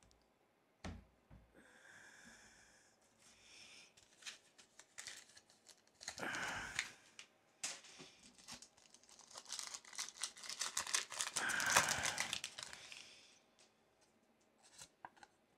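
Foil wrapper of a Pokémon booster pack being torn open and crinkled by hand: a short rip about six seconds in, then a longer stretch of crackling from about ten to thirteen seconds.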